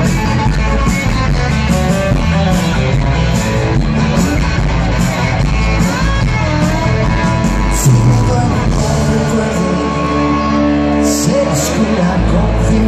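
Live rock band heard through an arena PA: an electric guitar lead over drums and bass. The deepest bass drops out for a couple of seconds about nine and a half seconds in, then comes back near the end.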